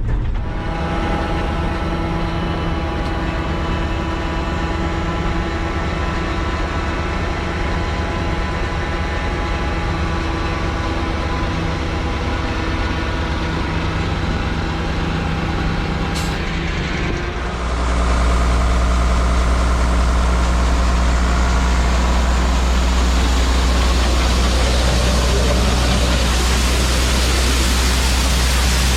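Grain truck engine running steadily. A brief sharp sound comes about 16 seconds in, and shortly after, the sound changes to a louder, steadier low drone with more hiss.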